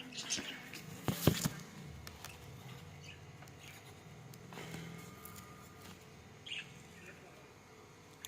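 Knocks and cracks of a peeled corn cob being cut into pieces, loudest in a cluster about a second in, with scattered lighter clicks after. Faint short chirps from caged parrots.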